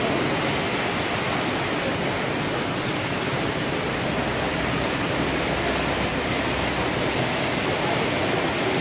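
Steady rushing background noise, even and unbroken, with no distinct events.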